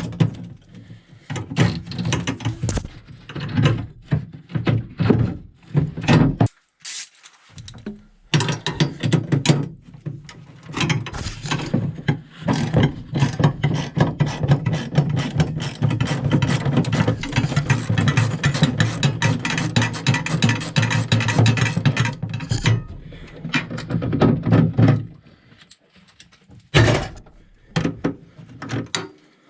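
Ratchet wrench clicking in long quick runs with short pauses between, turning off nuts on the battery tray's studs, which are typically rusted and soaked with WD-40.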